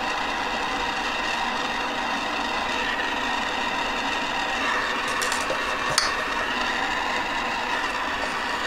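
Gas soldering torch burning with a steady hiss while heating the solder join of a silver ring until the solder melts and flows. A single light click about six seconds in.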